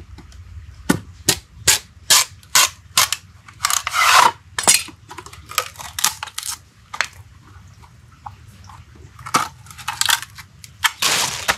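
Dishes and utensils clattering: a run of sharp clinks and knocks, with two longer swishes about four seconds in and near the end.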